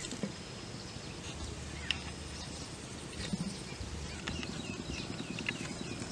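Leaves and plant stems rustling and snapping as plants are picked by hand, with a few soft clicks.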